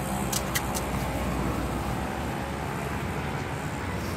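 Steady roadside traffic noise, with three quick light clicks about half a second in.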